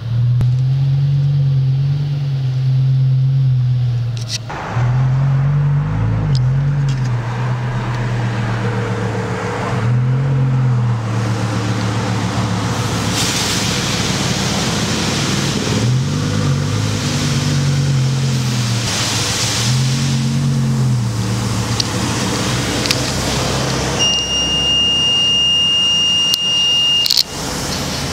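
Audi R8's tuned V10 engine running at idle, with several brief throttle blips that raise its pitch and let it fall back. Near the end a steady high beep sounds for about three seconds over the engine and cuts off suddenly.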